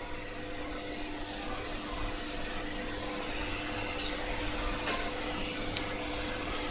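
Steady hiss of background noise with a faint hum under it, growing slightly louder, and a couple of light clicks near the end.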